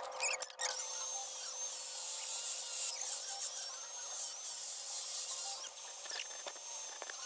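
Corded angle grinder running and grinding against a small piece of metal, with a steady high whine that wavers as the disc bears on the metal, over a harsh hiss. It starts about a second in.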